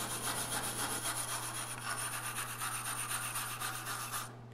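Hand wire brush scrubbing a freshly TIG-welded aluminum plate in quick back-and-forth strokes, making a steady scratchy rasp that stops about four seconds in. The weld area is being cleaned before a touch-up welding pass.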